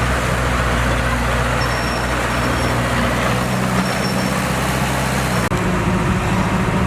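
Diesel engine of heavy earthmoving machinery running steadily. The engine note changes abruptly about five and a half seconds in.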